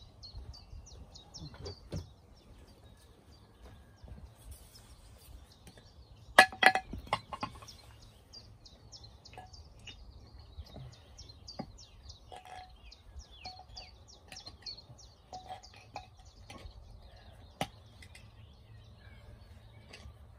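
Small birds singing, with quick runs of short high chirps repeating throughout. About six seconds in comes a cluster of sharp knocks, the loudest sound, with a few lighter knocks later, as stone slabs of a fire pit are shifted by hand.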